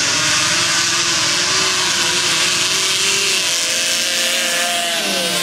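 Two racing lawn mowers' small engines running hard side by side down a dirt drag strip, a loud steady buzz whose pitch drops over the last couple of seconds as they come off the throttle.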